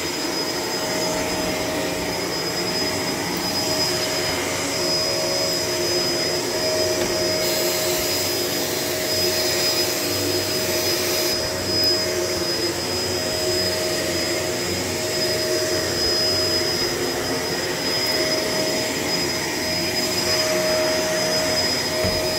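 Shark LA702 Lift-Away vacuum cleaner running steadily while vacuuming: an even motor noise with a steady mid hum and a high, thin whine held throughout.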